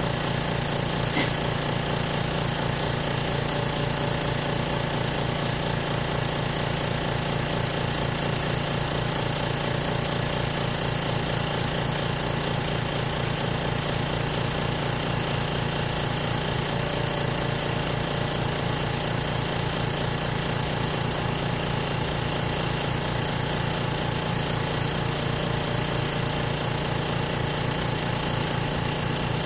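Exhaust fan running with a steady hum and a fast, even low pulse.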